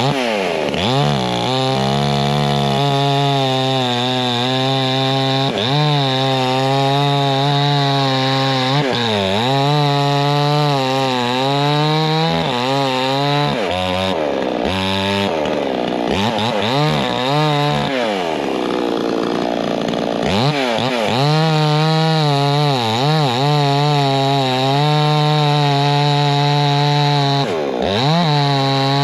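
Two-stroke gas chainsaw running at high speed, its engine note repeatedly sagging and climbing back as it cuts through beech wood.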